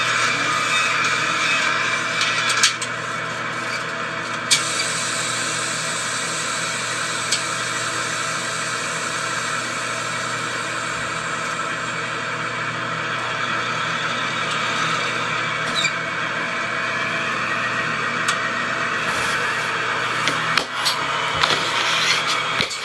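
Ambulance driving off: steady engine and road noise without a siren, with a few sharp clicks and a short run of knocks and rattles near the end.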